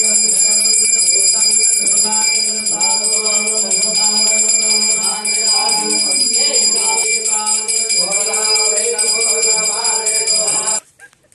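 Temple hand bell rung continuously during a puja, giving a steady high ringing, with voices chanting over it. Both cut off abruptly near the end.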